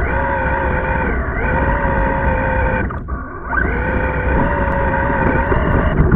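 RC car's motor and drivetrain whining at a high, steady pitch under throttle; it cuts off about three seconds in and winds back up half a second later as the car accelerates again.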